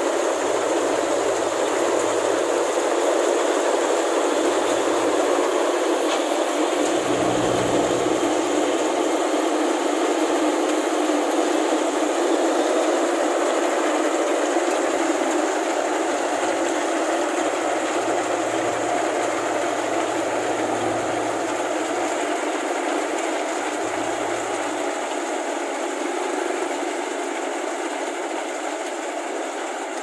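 Rice combine harvester running while cutting paddy: a steady mechanical clatter of engine and machinery, getting slowly quieter over the second half.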